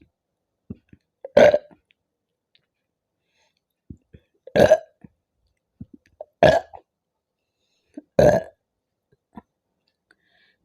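A person burping loudly four times, each burp short and about two seconds apart. These are soda burps, from gas swallowed with carbonated Mountain Dew.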